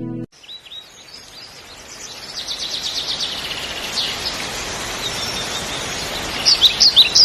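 Small birds chirping and trilling over an even background hiss. A run of loud, quickly repeated chirps starts near the end.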